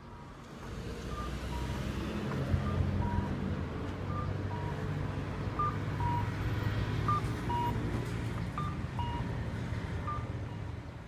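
Low rumble of road traffic with a repeating two-note electronic chime over it, a short higher note followed by a lower one, about every second and a half.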